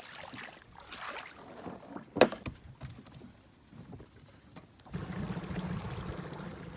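A few scattered knocks, one sharp, then about five seconds in a dinghy's small outboard motor starts running steadily with a low hum.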